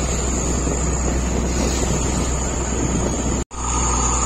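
Fishing boat's engine running steadily under way, with wind on the microphone and water rushing past the hull. The sound cuts out for an instant about three and a half seconds in and resumes.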